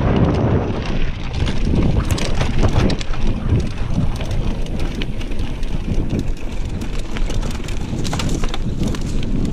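Mountain bike descending singletrack at speed: steady wind buffeting on the microphone over tyres rolling on dirt, with frequent clicks and rattles from the bike over bumps, busiest a couple of seconds in and again near the end.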